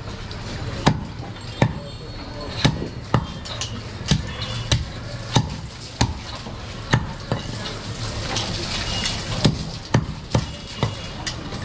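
A butcher's large knife chopping goat meat on a round wooden chopping block: a dull knock of the blade into the wood about once or twice a second.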